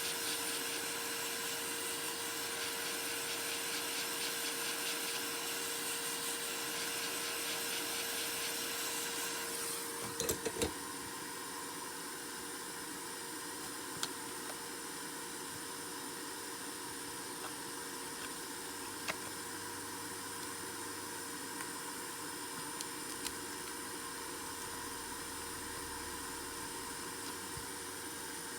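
Steady hiss with a faint hum, which drops a little about ten seconds in, just after a few clicks; a few isolated small clicks come after that.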